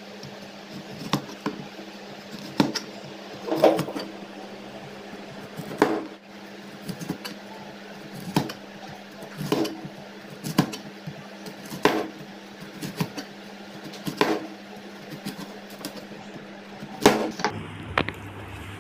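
Kitchen knife cutting down through a peeled wax gourd onto a plastic cutting board: a sharp knock roughly once a second as each round slice is cut, over a steady low hum.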